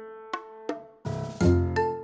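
Background music: a slow line of struck, ringing keyboard-like notes, with a deeper chord about a second in.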